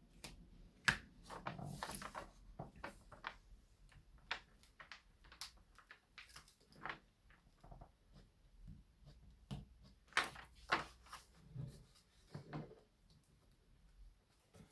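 Irregular rustles, light knocks and clicks as a large diamond painting canvas sheet is handled and unrolled. A cluster of louder rustles comes about ten seconds in.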